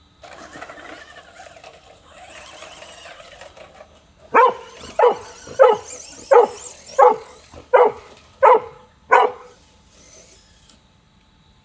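A dog barks eight times in an even rhythm, about one bark every 0.7 s. It is preceded by a few seconds of the electric RC truck's motor and tyres running.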